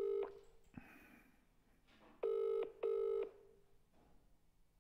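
Telephone ringback tone, the British double "brr-brr" ring, heard from the caller's end while the call rings unanswered. The tail of one double ring comes right at the start, and a full double ring comes about two seconds in.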